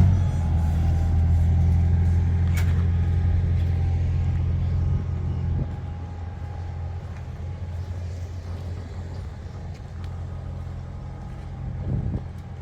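Combine harvester engine running steadily with a faint steady whine above it. It drops in level about five and a half seconds in.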